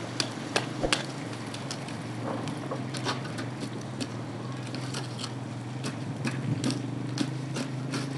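Steady low hum with light clicks and crackles scattered irregularly over it.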